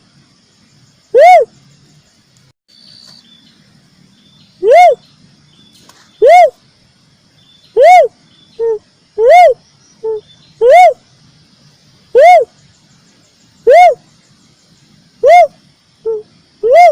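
Cuckoo-dove (uncal) lure call: loud single hooting notes, each rising then falling in pitch, repeated about every one and a half seconds after a short pause near the start. Some of the later notes are followed by a shorter, lower note.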